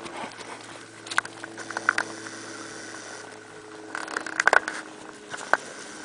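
Horses' hooves striking the pasture ground as they move about: irregular clusters of sharp knocks about a second in and again around four seconds, over a steady low hum.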